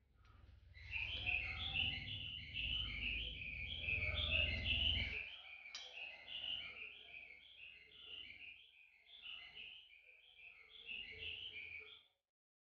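Small birds chirping in quick, continuous twittering runs, with a low rumble underneath for the first few seconds; the chirping cuts off abruptly shortly before the end.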